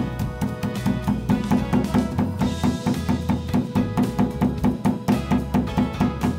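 Instrumental background music with a steady percussive beat.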